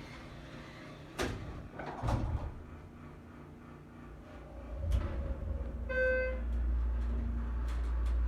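Schindler elevator's sliding doors closing, ending in a thump about five seconds in. A short chime follows, then a steady low hum from the elevator machinery.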